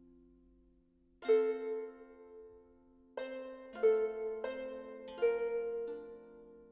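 Background music of slow, sparse plucked-string notes, each struck sharply and left to ring and fade.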